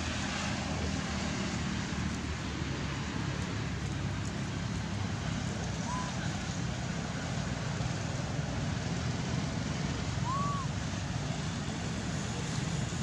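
Steady rushing outdoor background noise, heaviest in the low range, with two brief chirps that rise and fall, about six and ten seconds in.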